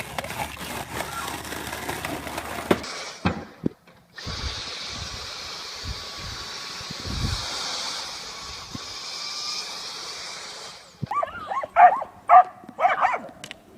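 A dog barking several times in short, sharp barks in the last few seconds, after a long stretch of steady hissing noise.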